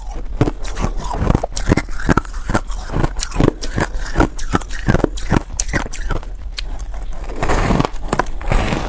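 Reshaped ice dusted with buckwheat powder being bitten and chewed close to the microphone: a quick run of crisp, crunchy bites, about three a second, turning into a denser grinding crunch near the end.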